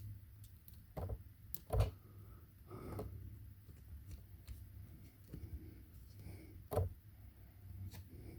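Small metal parts of a brass padlock being handled, giving scattered light clicks and knocks. Two louder knocks come about two seconds in and near the end, over a low steady hum.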